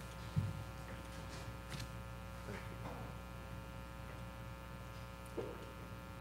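Steady electrical mains hum on the room's sound system. There is a low thump about half a second in, and faint scattered knocks and rustles as people settle back into their chairs.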